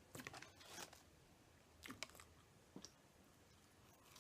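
Faint mouth sounds of a person biting and chewing food, with a few short crunches in the first second and again around two seconds in.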